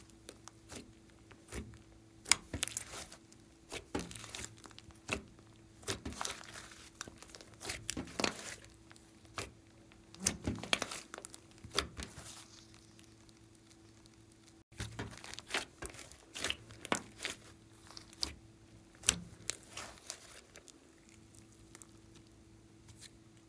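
Hands kneading, squeezing and stretching a large mass of thick slime: irregular squishes and quick crackling pops, in short clusters with quieter gaps between.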